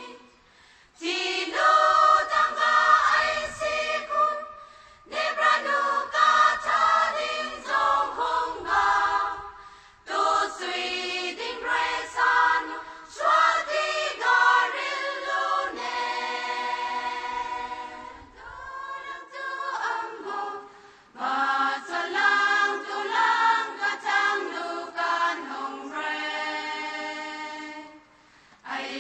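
A choir singing a cappella, phrase by phrase, with short pauses between the phrases.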